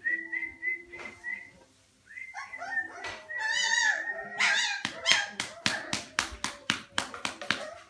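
Old English Sheepdog puppies whining and yipping in short, high, squeaky calls. Through the second half, a quick run of sharp taps comes in, about four or five a second.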